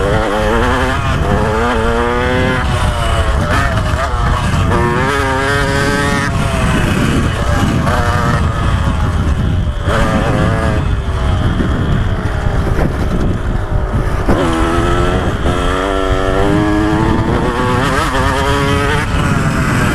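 A 2015 KTM 125 SX's single-cylinder two-stroke engine, ridden hard: it revs up, drops back at each shift, and revs up again several times.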